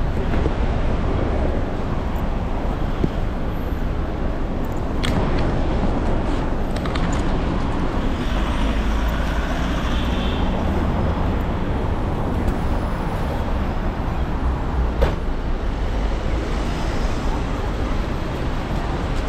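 City street traffic: a steady wash of passing vehicles and road noise, with a few short, sharp knocks, one about five seconds in and another about fifteen seconds in.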